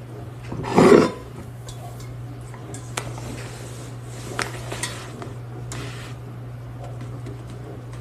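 A stainless steel saucepan being handled: a loud clatter about a second in, then several light metallic clinks and knocks, over a steady low hum.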